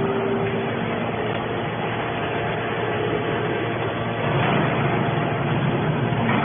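Machinery running steadily: a dense mechanical drone with a few faint steady hums, growing a little louder about four seconds in.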